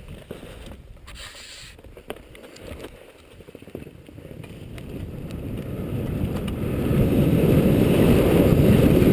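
Wind rushing over a helmet-mounted action camera's microphone as a skier gathers speed downhill, swelling from about four seconds in until it is loud. Under it, skis scrape and hiss on soft, slushy snow.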